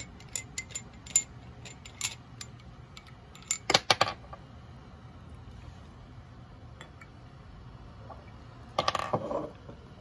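Gold metal screw cap being turned off the threaded glass neck of an old Guerlain Habit Rouge splash bottle: a run of small sharp clicks from the threads, loudest about four seconds in. Near the end there is a brief knock and rattle.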